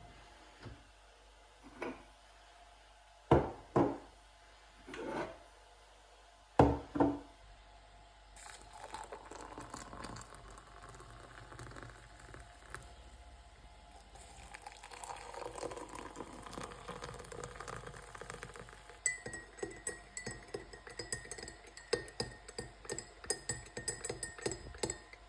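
Kitchen handling sounds: a few sharp knocks and clinks of tableware, then a steady rush like liquid being poured, and quick repeated clinks near the end like a spoon stirring in a cup or glass.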